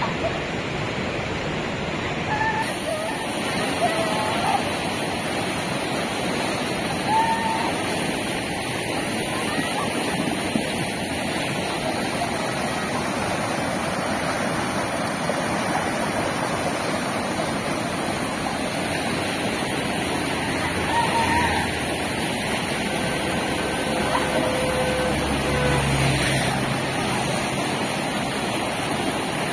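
Muddy floodwater rushing fast down a stream channel: a steady, loud rush of water.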